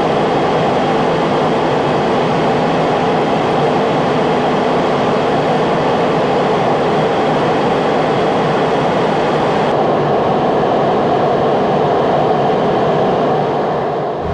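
Steady cabin noise of a Boeing 737 airliner at cruise altitude: an even rush of air and engine noise heard from a window seat, dipping slightly at the very end.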